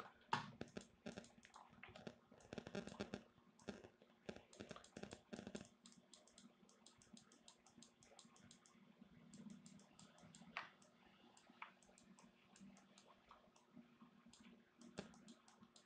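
Faint, rapid, irregular clicking of a computer mouse and keyboard, with a faint low steady hum beneath.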